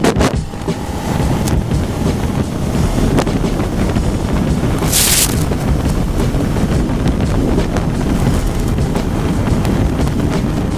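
Heavy wind noise on the camera microphone of a Suzuki SV650 riding at road speed, with the bike's V-twin engine running underneath it. There is a brief hiss about five seconds in.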